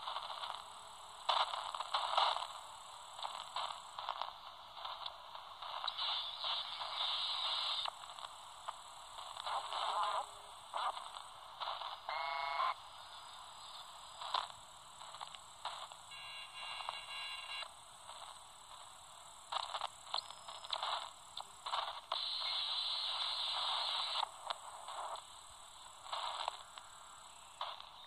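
Albrecht AE 2990 AFS handheld CB transceiver's speaker while it steps through 27 MHz channels: bursts of hiss and crackle that change from channel to channel, broken by short clicks. A brief warbling tone comes about twelve seconds in, and a steady whistle a few seconds later.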